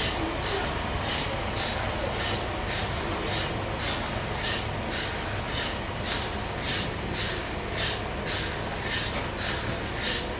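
Bandsaw sawmill running, a steady machine noise with a regular high hiss that pulses about twice a second.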